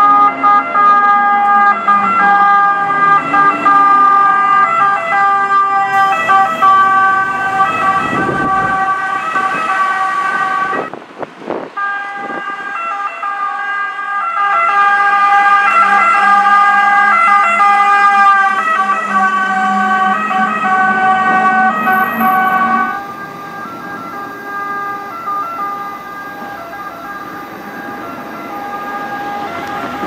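Sirens of Italian fire engines (Iveco Stralis) sounding as the trucks come down the road. The siren breaks off briefly about eleven seconds in, then returns with a lower engine hum under it for a while, and is quieter in the last few seconds.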